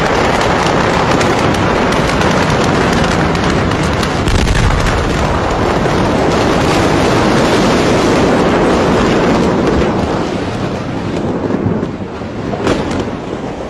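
Massive explosion close by: a loud, continuous rumbling roar full of rapid crackling that overloads the phone's microphone, easing off after about ten seconds.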